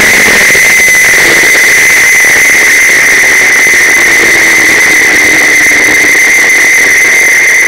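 Onboard sound of a Suzuki GSX-R1000 inline-four engine in a racing prototype at low revs while the car slows, its note slowly falling. A loud steady high-pitched whine runs over it, and the whole track is loud and saturated.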